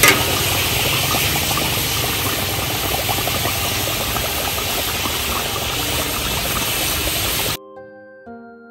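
Pork-stuffed squid frying in hot oil: a loud, steady sizzle with fine crackling. It cuts off suddenly near the end, and a few soft music notes follow.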